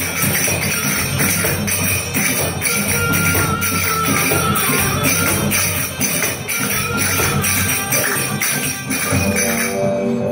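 Tribal belly dance music with finger cymbals (zills) ringing in a steady, even rhythm over it. Near the end the cymbal strikes stop and the music carries on with held tones.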